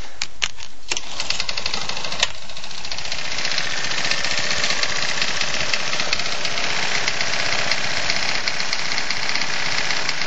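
Tecumseh Vantage 3.5 hp single-cylinder lawn mower engine running with a loud, rapid knocking: rod knock. A few sharp clicks come in the first two seconds.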